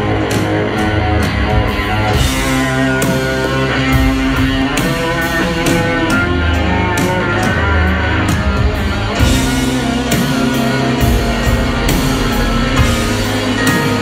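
Live rock band playing loudly, with electric guitar to the fore over drums and keyboards, heard from within the audience.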